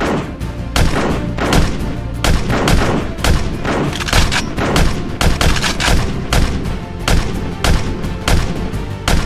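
A string of sharp shot sounds, about two a second, as Nerf blasters fire, over continuous background music.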